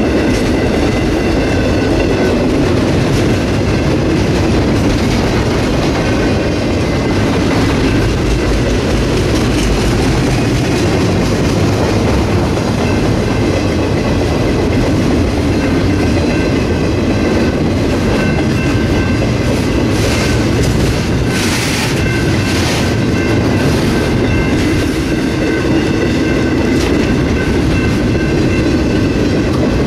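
Circus train's loaded flatcars rolling steadily past close by, wheels clicking over the rail joints, with a faint high wheel squeal that comes and goes.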